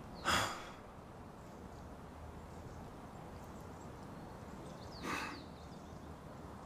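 A man exhaling sharply twice, a louder breath just after the start and a weaker one about five seconds later, over a faint low steady hum.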